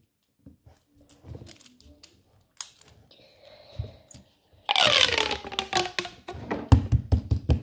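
Fidget toys handled close to the microphone: scattered small clicks and rustles, then a louder burst of handling noise with a falling pitch about two-thirds of the way through, running into a fast low rattle.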